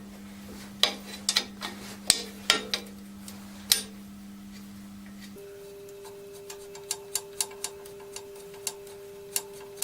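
Ratchet wrench clicking in short runs on a tightly placed bolt of a tractor's hydraulic cover, with light metal clinks of tools in between. A faint steady hum runs underneath and steps up in pitch about five seconds in.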